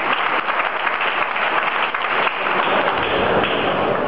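Arena crowd applauding, a steady clatter of many hands clapping.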